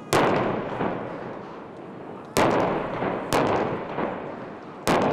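Aerial firework shells bursting overhead: four loud bangs, one right at the start, then at about two and a half, three and a half and five seconds in, each followed by a long echoing decay, with a couple of fainter bangs between.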